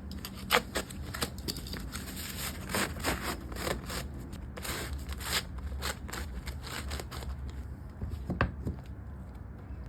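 Carpet being cut and handled during a repair: an irregular run of snips, scrapes and crackles, the sharpest about half a second in, thinning out near the end, over a steady low hum.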